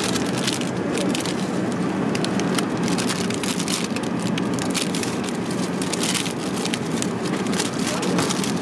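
Clear plastic food wrapper crinkling and crackling in the hand, many small crackles, over the steady rush of an Airbus A380 cabin in flight.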